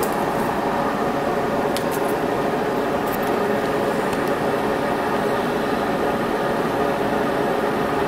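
Steady whir of a running fan at an even level, with a couple of faint ticks about two and three seconds in.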